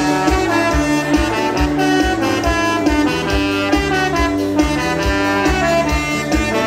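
Dance-band music in an instrumental passage with no singing: a saxophone-like horn melody over a bouncing bass that alternates between two notes and a steady drum beat, about two beats a second.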